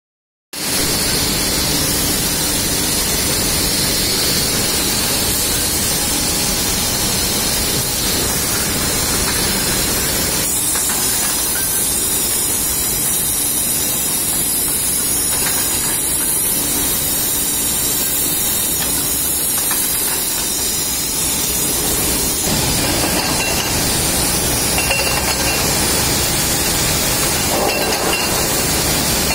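Loud, steady industrial hiss and machinery noise of an aluminium smelter's cast house, around the ingot casting line. There are no distinct knocks or rhythm, and the mix shifts slightly about ten seconds in and again a little after twenty seconds.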